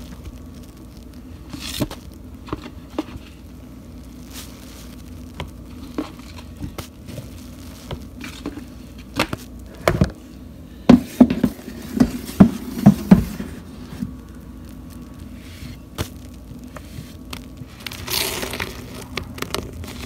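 Soapy sponge being squeezed in thick suds: wet crackling and clicking of foam, with a quick run of loud squelches around the middle. Near the end, water starts running from a tap onto the foam.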